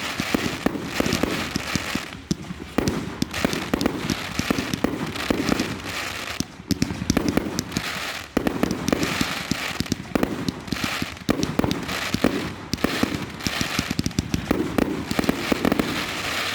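Fireworks display going off: volleys of many sharp bangs and crackles in quick succession, with short lulls between volleys.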